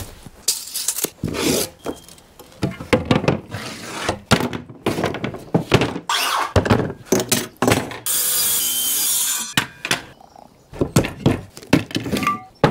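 Knocks and clatter of tools and a long metal straightedge being handled on a plywood sheet, with one scraping slide lasting over a second about eight seconds in.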